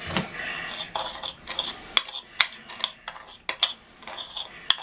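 Metal teaspoon stirring and clinking against a small porcelain saucer, mixing sugar with ground cinnamon: a quick, irregular run of bright clinks.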